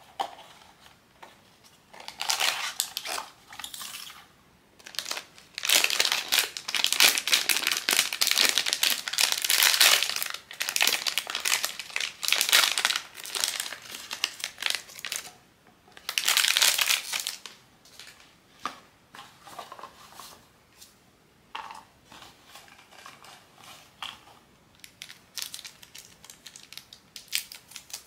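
Plastic wrapping of a blind-box figure being crinkled and crumpled by hand. There is a long loud stretch of crinkling in the middle and another short burst after it, then lighter rustles and clicks near the end.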